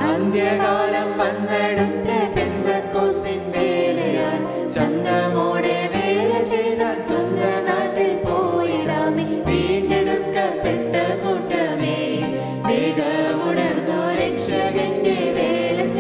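A hymn sung by a small group of singers over instrumental accompaniment, with held bass notes changing every second or two beneath the voices.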